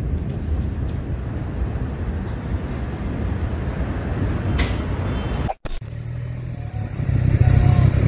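Steady low rumbling and wind-like noise picked up by a phone filming the smoke cloud of a huge explosion. It cuts off suddenly about five and a half seconds in, and a lower steady hum follows that grows louder near the end.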